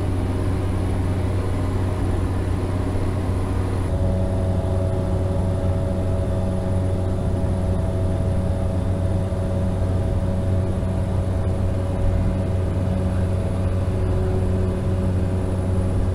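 Steady drone of a small propeller airplane's engine and propeller heard inside the cabin in flight, a constant low hum. About four seconds in, a higher steady hum joins it.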